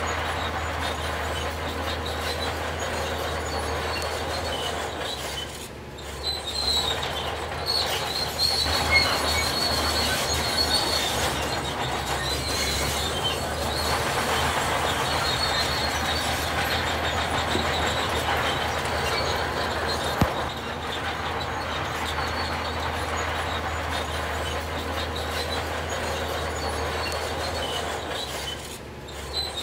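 Heavy construction machinery working: an engine running with a low rumble under a steady, high metallic squeal, with a brief drop about six seconds in and again near the end.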